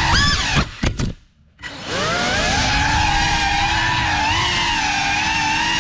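Geprc FPV quadcopter's brushless motors and propellers whining, the pitch gliding up with a throttle burst. A few short bursts follow, then the motors cut out for about a second. They spin back up with a rising whine and settle into a steady drone that wavers with the throttle.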